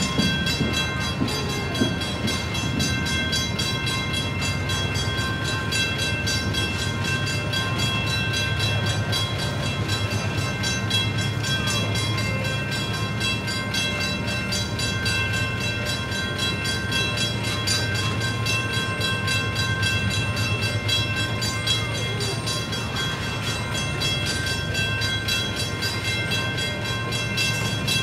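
Coal gondola cars of a heavy coal train rolling slowly past at a crawl, a steady rumble of steel wheels on rail.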